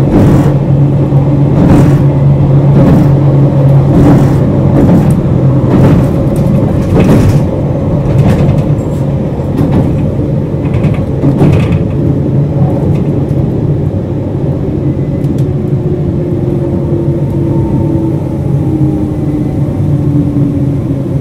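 Running sound inside a JR Hokkaido 721 series 0-subseries electric multiple unit with thyristor phase control. The wheels click over rail joints about once a second over a steady low hum. In the second half the clicks thin out and faint whines fall slowly in pitch as the train slows.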